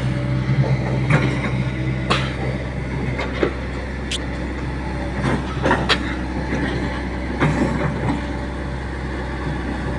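Diesel engine of a Hitachi Zaxis 110 crawler excavator running steadily as the machine works over loose dirt, with several sharp clanks from the machine scattered through it.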